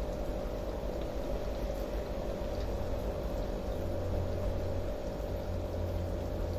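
Aquarium filter running: a steady hum with a low drone and the light bubbling of moving water.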